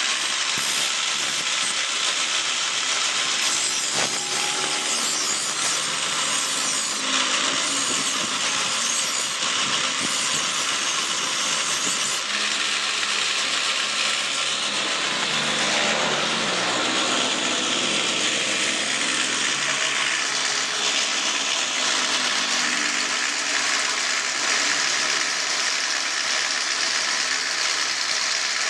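Continuous rasping, grinding noise of a tool working the steel of a sickle blade.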